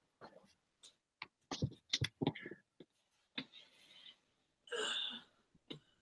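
Scattered knocks and rustles of people moving close to the microphone, with a short breathy hiss about five seconds in.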